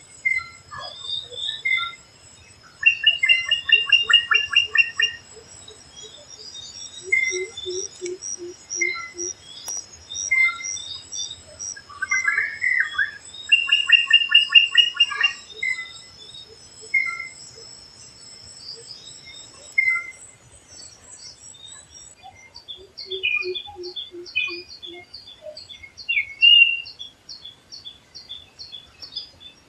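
Forest birds calling and singing together, with short repeated chirps, two fast trilling bursts, and a few short runs of low, even hooting notes. A steady thin high tone sits under the calls for the first two-thirds, then stops, and a rapid series of high notes takes over.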